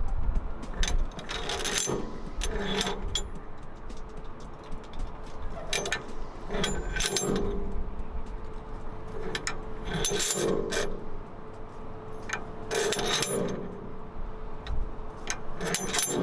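Metal parts clinking and rattling in irregular bursts, over a faint steady hum.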